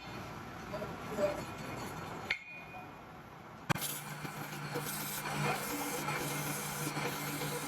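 Rubbing and scraping on metal during restoration work. After a sudden cut about halfway through, a steady low machine hum runs under continued scraping.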